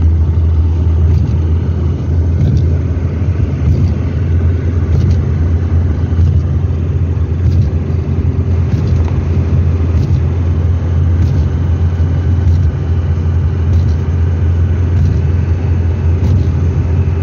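Hillman Super Minx's four-cylinder engine and road noise heard from inside the cabin while cruising, a steady low rumble.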